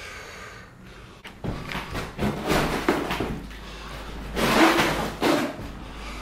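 A string of knocks and scraping rustles of things being handled or moved, the loudest a longer scrape about four and a half seconds in.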